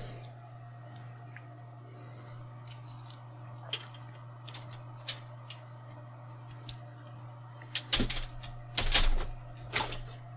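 Light clicks of plastic laptop parts and the display cable connector being handled and unplugged, a few scattered at first, then a cluster of louder clicks and clatter near the end, over a steady low hum.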